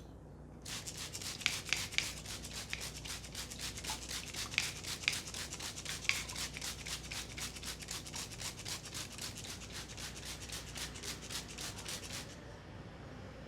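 Hands rubbing briskly back and forth over hair and scalp in a head massage, a fast even swishing of about six strokes a second. It starts shortly after the beginning and stops about a second before the end.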